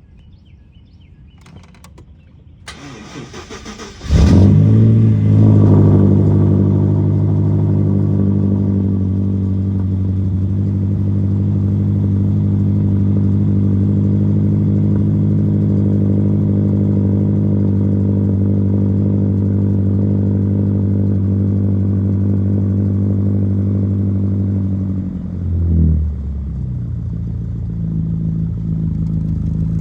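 A BMW X6 M's twin-turbo V8 is cranked and starts about four seconds in, flaring up in revs before settling into a steady idle. Near the end the revs briefly rise and the engine settles to a lower, steady idle.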